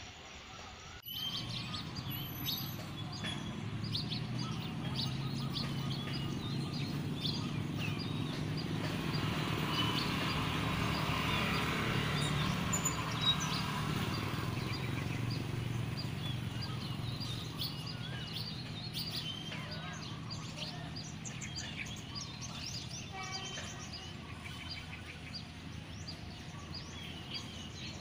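Many small birds chirping in quick short calls over a steady low rumble that swells in the middle and eases off again.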